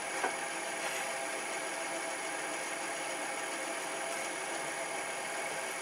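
Old drill press running steadily on a variable frequency drive: a constant motor hum with a thin, high whine over it.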